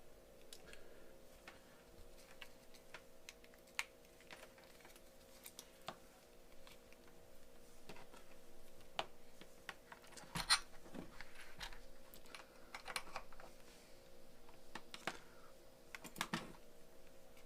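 Irregular light clicks and taps of small objects being handled on a workbench, a few louder ones about ten and sixteen seconds in, over a faint steady electrical hum.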